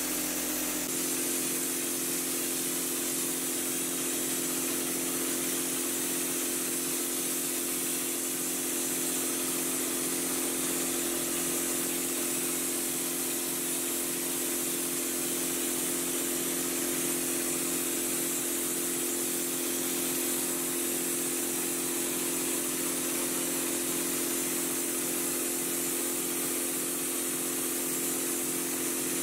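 Drywall texture hopper gun spraying orange peel texture, a steady hiss of air and mud, over the even drone of the air compressor that feeds it.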